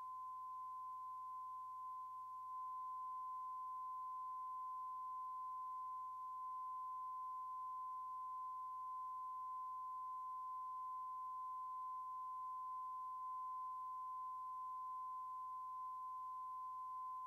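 Steady electronic test tone: a single pure pitch held unbroken, with a faint low hum beneath it.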